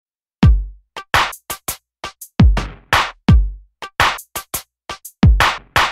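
Electronic drum-machine beat as intro music: deep kick drums that drop in pitch, alternating with sharp snare and hi-hat hits. It starts about half a second in.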